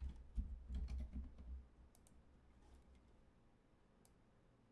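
Faint clicking: a handful of short clicks in the first two seconds and one more about four seconds in, with low bumps under the first second and a half.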